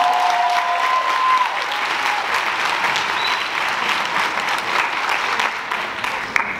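Audience applauding steadily, the clapping dying down near the end.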